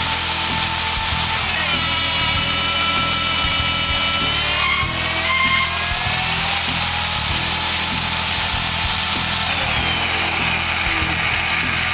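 BDS AUTOMAB 350 magnetic drill running under its automatic power feed as a 15/16-inch annular cutter bores through the workpiece. It is a steady, loud motor and cutting whine whose pitch slowly shifts up and down.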